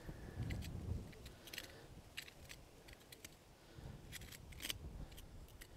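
Faint, irregular clicks and scrapes of a hand tool being drawn through stony soil to make a shallow seed trench, with small stones ticking against the blade.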